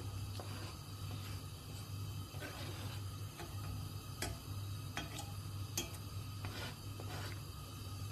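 A knife tapping and scraping chopped onion off a plastic cutting board into a pot: a few scattered sharp ticks over a steady low hum.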